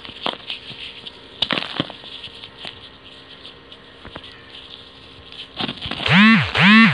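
Dry sand-and-cement balls crumbling in the fingers: scattered small crackles and gritty crunching. About six seconds in, two loud pitched sounds follow one another, each rising and then falling in pitch.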